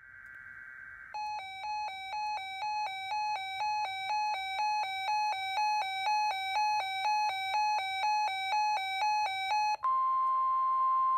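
A weather radio's electronic alert alternates between two pitches about twice a second for around eight seconds. It then gives way to a steady single tone of about 1050 Hz, the NOAA Weather Radio warning alarm tone that comes before a broadcast weather alert.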